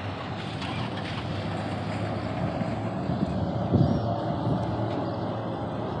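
A motor vehicle's engine and tyre rumble, growing gradually louder, with a brief low bump about four seconds in.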